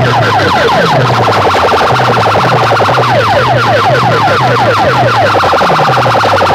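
An electronic siren-like effect played very loud through a bank of horn loudspeakers: rapid falling chirps about five a second, easing off briefly about two seconds in, over a repeating low bass pattern.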